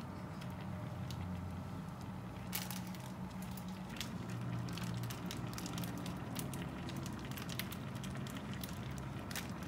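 Thick tteokbokki sauce simmering in a frying pan, bubbling with irregular small pops and crackles over a steady low hum.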